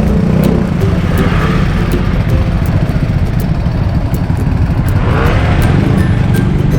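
Traffic and wind noise heard from a moving bicycle: a loud, steady low rumble of wind on the microphone, with a motor vehicle passing about a second in and another around five seconds.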